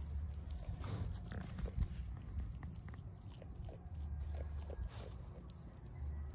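Sheep eating dry hay off the ground: an irregular run of small crunches and tearing sounds as they bite and chew.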